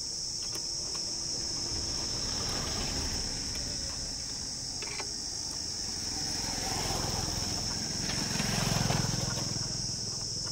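Crickets chirping in a steady high shrill, with a few faint metallic clicks from hand tools on a motorcycle exhaust. A low rumble swells briefly about eight to nine seconds in.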